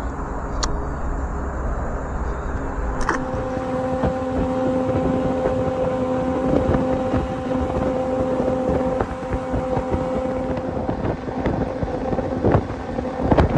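Boat motor running, with wind buffeting the microphone. A steady hum comes in about three seconds in and fades out near the end.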